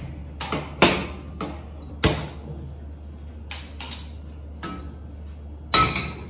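A handheld spark lighter clicking at a gas stove burner, several sharp clicks as the burner is lit. Near the end comes a ringing knock as a pot is set down on the burner's grate.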